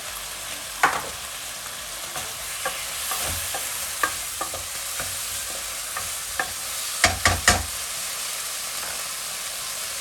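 Chicken wings sizzling in a saucepan with soy sauce, with a utensil stirring and clicking against the pan; three sharp knocks come close together about seven seconds in.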